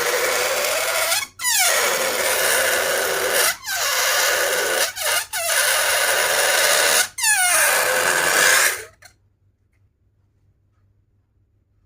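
Air squealing out of a rubber balloon's stretched neck as it deflates, in several long bursts with short breaks, the pitch dropping at the start of some bursts; it cuts off suddenly about nine seconds in.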